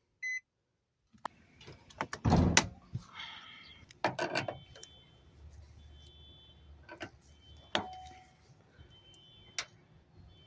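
Clunks and clicks of a car door being worked, the loudest about two seconds in, while the car's high electronic warning chime beeps on and off in the background.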